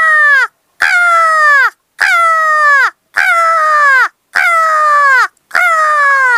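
A human voice mimicking a crow: six harsh, drawn-out caws, about one a second, each dropping in pitch at its end.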